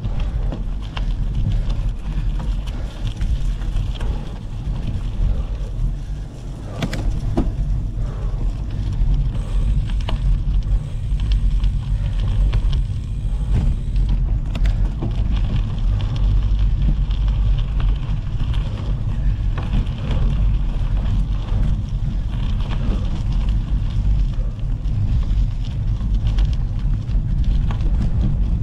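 Gravel bike rolling over a gravel track: a steady crunch and rattle from the tyres and bike with scattered clicks and knocks, under heavy wind buffeting on the action camera's microphone.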